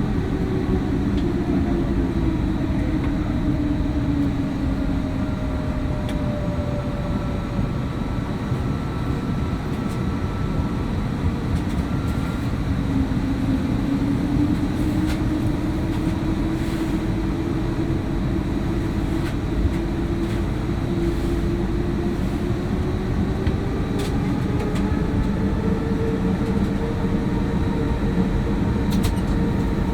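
Airbus A321neo turbofan engines heard from inside the cabin, a steady low rumble. The engine tone sinks in pitch over the first several seconds and rises again in the last third as thrust changes.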